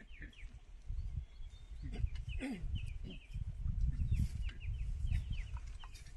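Birds chirping, many short falling chirps, with one longer falling call about halfway through, over a low rumble that sets in about a second in and eases off near the end.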